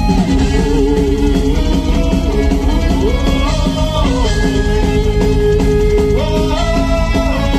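Heavy metal band playing live: electric guitars, bass guitar and drum kit, loud and steady, with a male singer's vocal line over them.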